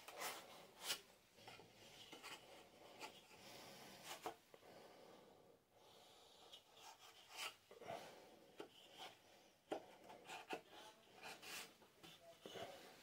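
Faint, irregular scraping and light knocks of wooden pieces being handled and rubbed together, as a tenon is worked into its mortise for a test fit.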